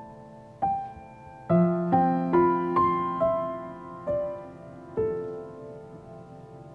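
Slow solo piano music: single notes struck one after another, each left to ring and fade, over a low chord about a second and a half in.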